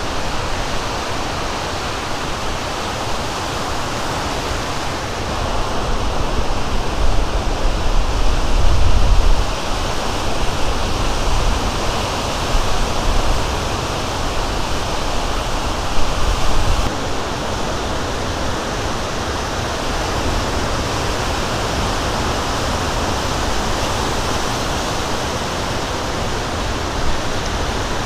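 Lake Michigan waves breaking and washing in, a steady rushing surf noise, with heavier low rumbles swelling about a quarter of the way in and again a little past the middle.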